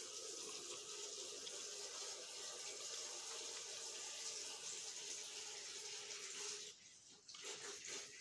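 A steady rushing hiss that drops away near the end, followed by a few faint short sounds.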